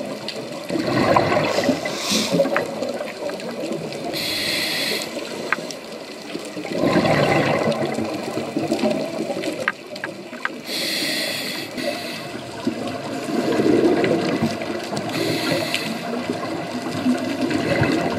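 A scuba diver breathing through a regulator underwater, three breaths in all. Each exhale is a bubbling rumble of escaping air, and each is followed a few seconds later by the hiss of an inhale.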